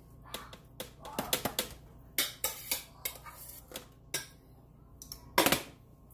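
Kitchen clatter: a string of irregular clicks and clinks of utensils and dishes being handled, the loudest a sharp knock about five and a half seconds in.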